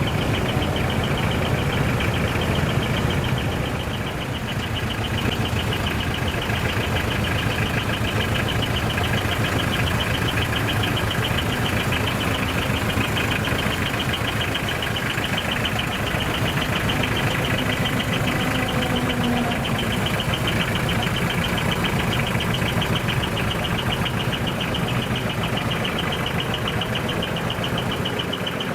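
Heavy diesel truck engines running steadily: a continuous drone with a fine, rapid, even rattle on top.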